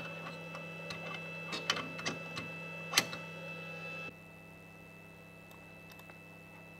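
Light clicks and knocks of material being handled and set down inside the open xTool M1 laser engraver, the sharpest about three seconds in, over a steady electrical hum with a high whine. The hum cuts off abruptly a little after four seconds, leaving only faint clicks.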